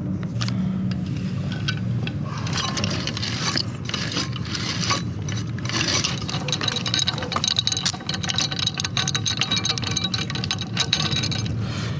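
Metal tools working on the fittings of a Harken roller-furler drum: scattered scrapes and clinks, then a fast run of small metal clicks from about six seconds in until near the end, over a steady low hum.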